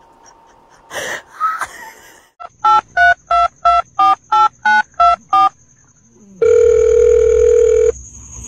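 Touch-tone telephone keypad beeps: about ten short, evenly spaced tones at a little over three a second, laid over a finger pressing a cat's face as if dialling. They are followed by one steady tone lasting about a second and a half. A brief noisy burst comes about a second in.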